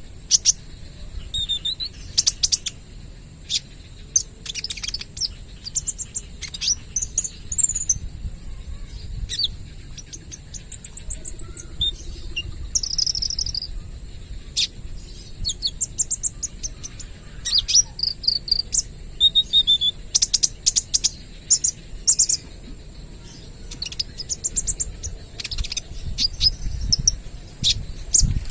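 Kolibri ninja sunbird singing: bursts of quick, sharp, high chirps and short trills, the rapid 'tembakan' shots that birdkeepers value, over a steady thin high-pitched hiss.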